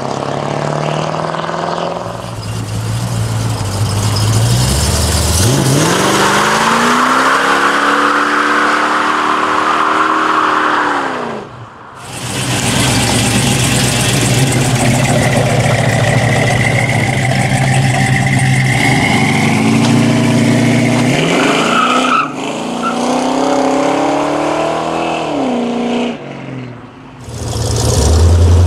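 Muscle car V8 engines revving hard through burnouts, over the dense hiss and squeal of spinning tyres. Several short clips follow one another, each with the engine climbing in pitch as it revs, and the sound breaks off abruptly between them.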